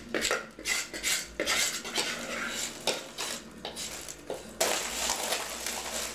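A metal spoon scraping and clinking inside a stainless-steel blender jug as thick blended mixture is scooped out, in a quick irregular run of metal clinks. About two-thirds of the way through the clinking stops and a steady rustling takes over.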